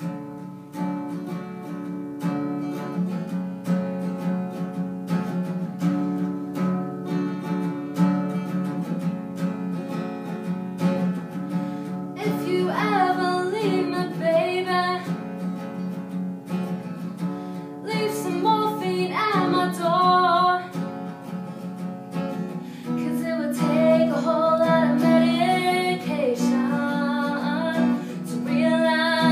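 Acoustic guitar playing on its own, then a woman starts singing with it about twelve seconds in, in phrases with short breaks between them.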